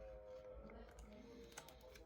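Faint background music with held tones, and a few light clicks near the end.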